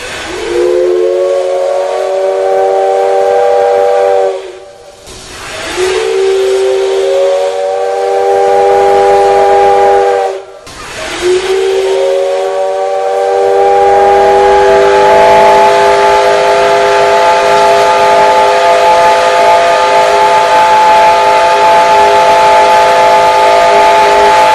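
JNR C57 1 steam locomotive's five-chime whistle blown three times, with steam hiss. Each blast slides up in pitch as it opens, then holds a steady chord of several tones. The first two last about four seconds each with short breaks between, and the third is held long.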